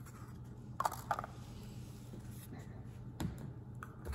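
Steady low room hum with a few light knocks and clinks from lab containers being handled on the bench: two close together about a second in, and two more near the end.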